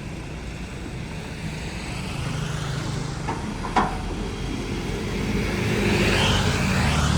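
Heavy diesel engine running, getting louder over several seconds, with one sharp clank a little under four seconds in and a hiss building near the end.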